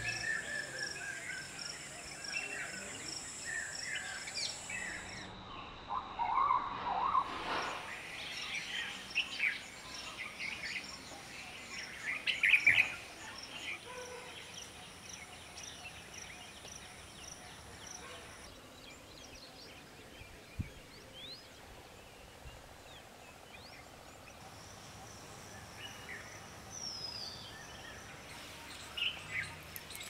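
Wild birds calling with short scattered chirps and whistles, the loudest a cluster about halfway through, over a steady high thin hum with a pulsing note. The background shifts abruptly several times as one field recording gives way to another.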